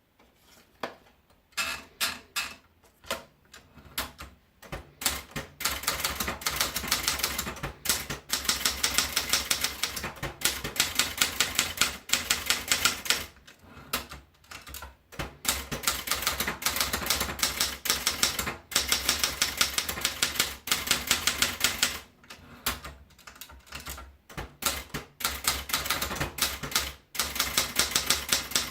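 Scheidegger International typewriter being typed on: a few slow keystrokes at first, then fast runs of key strikes broken by brief pauses.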